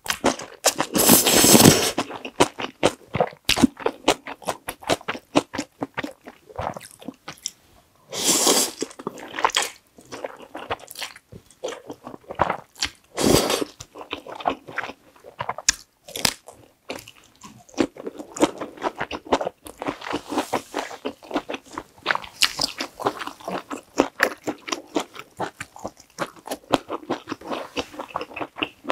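Close-miked eating of creamy Carbo Buldak stir-fried noodles: wet chewing with many small clicks and smacks. Longer noisy swells about a second in, around eight seconds in and around thirteen seconds in fit noodle slurps.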